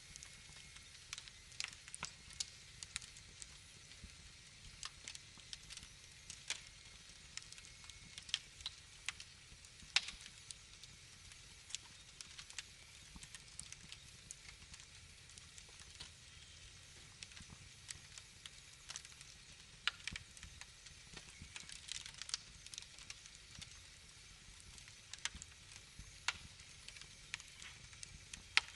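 Wood fire crackling in a fireplace: irregular sharp pops and snaps over a soft hiss and low rumble, with louder pops about ten and twenty seconds in.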